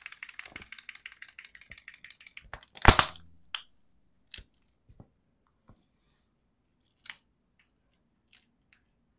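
A plush walking toy chick's mechanism clicking rapidly and evenly for about two and a half seconds, then a boot stamping down on the toy with one loud crunching thud about three seconds in, followed by a few scattered faint clicks.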